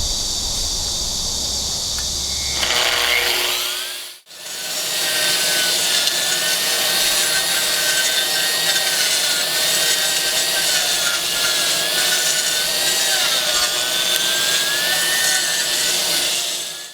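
AGP SM5 5-inch (125 mm) concrete grinder on a floor trolley. A steady hiss runs until the motor spins up about three seconds in. After a brief break about four seconds in, the grinder grinds steadily, its whine wavering in pitch as it is worked.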